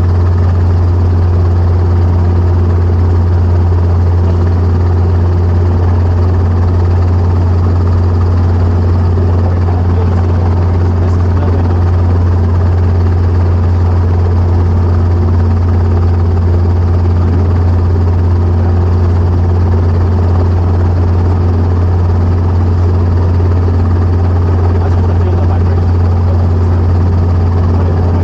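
Helicopter's engine and rotors running in a steady, unchanging drone with a strong low hum.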